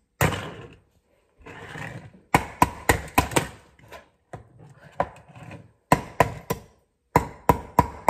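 A metal fork striking a ball of ice again and again, sharp clinks in quick runs of three to five about a quarter second apart, the fork ringing briefly after the harder hits.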